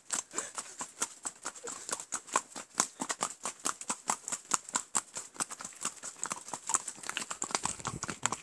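Horse's hooves clopping in a fast, uneven string as it runs.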